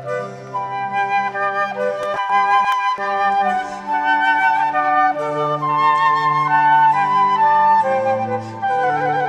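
Instrumental background music: a slow melody of held notes over sustained lower accompanying notes.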